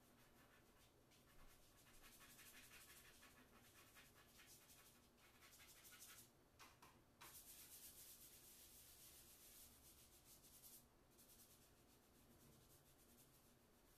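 Faint, quick scratching strokes of chalk on charcoal-covered Bristol paper as fine fur is drawn, busiest through the middle with a brief break just past halfway, then lighter near the end.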